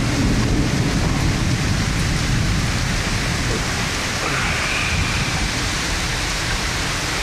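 Heavy thunderstorm rain pouring steadily, an even downpour with no break.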